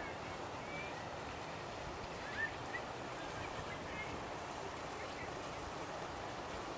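Outdoor ambience: a steady background hiss with a few short, scattered bird chirps.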